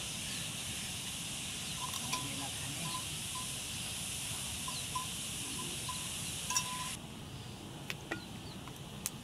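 Steady high-pitched insect buzzing with faint, bell-like tinkles now and then, cutting off suddenly about seven seconds in. After that come a few sharp clinks of a metal vessel against a steel bowl.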